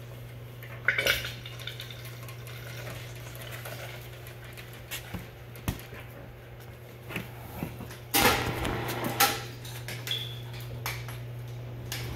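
Scattered clinks, clicks and clatter of metal and plastic containers and tools being handled, with a louder rattle about eight seconds in, over a steady low hum.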